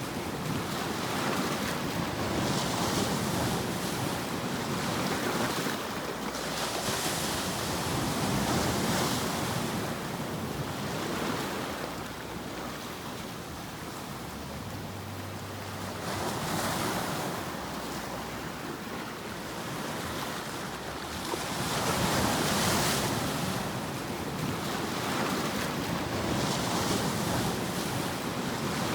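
White-noise sleep track: a continuous rushing noise like ocean surf, swelling and ebbing every few seconds, with a quieter lull about halfway through.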